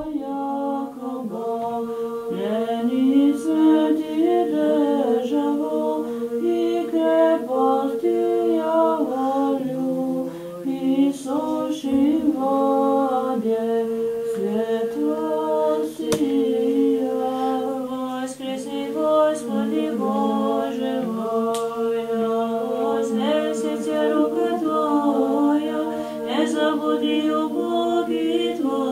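Orthodox church chant sung unaccompanied by a small choir: a long held drone note sounds beneath a slowly moving melody line.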